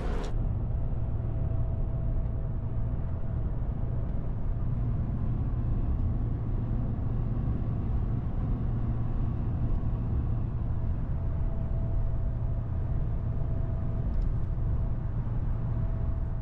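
Steady low rumble of a Ram pickup truck driving, heard from inside the cab: engine and road noise at an even level.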